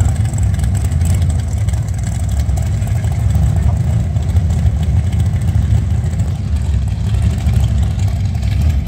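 Drag-race car engines running steadily at low revs with a loud, deep rumble, between the burnout and the launch.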